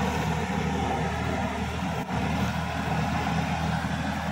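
Sonalika DI 50 RX Supreme tractor engine running steadily under load as it drags a puddling leveller through a flooded, muddy paddy field.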